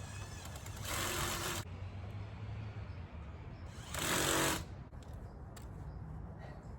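Ratchet wrench spun in two quick buzzing bursts, about a second in and again about four seconds in, run down on the clutch slave cylinder's bolts.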